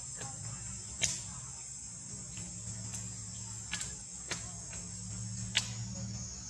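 Steady high-pitched drone of insects in the surrounding trees, with a low hum beneath it. Four short sharp clicks break through it, the loudest about a second in and the others in the second half.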